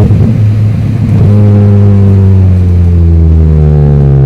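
Chevrolet Astra 2.0 four-cylinder engine on a straight pipe with no muffler, running loud. After a rev it breaks into a rough, uneven sound for about the first second, as at a gear change or lift-off. It then settles back into a steady note at lower revs, easing slowly down.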